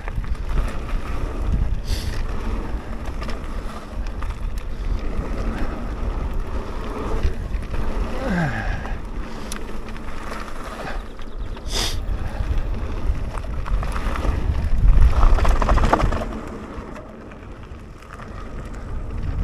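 Mountain bike descending a dry dirt trail at speed: a steady rumble of tyres over dirt and gravel with wind rushing over the microphone, and a few sharp rattles and clicks from the bike. The rush swells to its loudest about three-quarters of the way through, then drops away for a couple of seconds.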